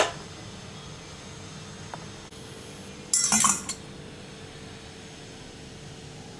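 Steel cooking pot clinking as it is handled and taken off the stove: one sharp clink at the start, then a short burst of metallic clinks about three seconds in.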